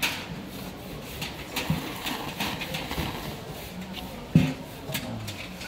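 Knife-cut noodles being slurped and chewed: a run of short wet mouth and slurping sounds, with a sharper knock about four and a half seconds in.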